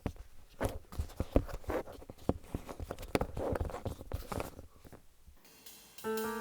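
Irregular light taps and short scratchy handling noises for about five seconds, then a sustained pitched note, like a piano, starts about six seconds in and rings on as background music begins.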